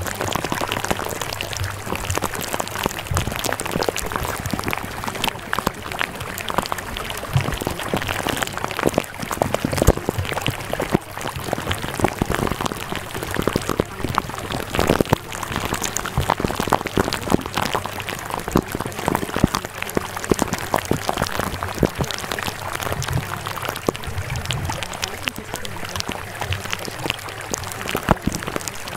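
Steady rain-like sound: a dense hiss full of small ticks and crackles, with a low steady hum underneath.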